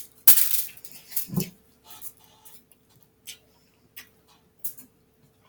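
Eating sounds up close: irregular chewing and mouth noises with scattered short clicks, likely utensils on a plate, over a faint steady hum.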